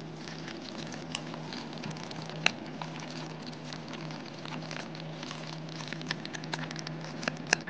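Restaurant background: scattered light clicks and clinks of tableware at irregular moments, a few sharper ones about a second in, at two and a half seconds and near the end, over a steady low hum of room noise.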